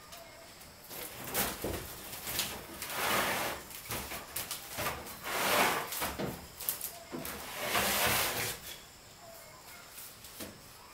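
A run of rough swishing scrapes, about seven strokes over some eight seconds, then dying away to quiet background.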